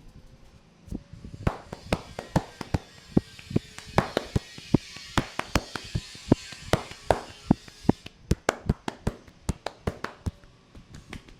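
Barber's hands tapping and slapping on a person's head in a head massage: a quick, uneven run of sharp smacks, about four a second, starting about a second in, with a soft rubbing hiss underneath through the middle few seconds.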